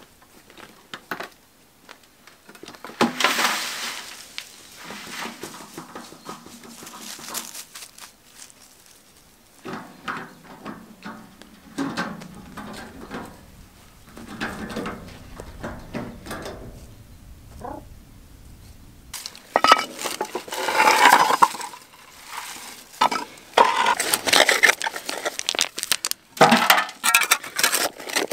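Stones and rubble clattering and clinking, with a wheelbarrow rattling as it is pushed over rough ground. The clatter comes in irregular loud spells, densest near the end.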